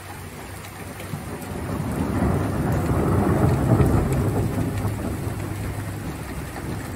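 A long roll of thunder, building up, peaking about halfway through and slowly fading, over steady rain.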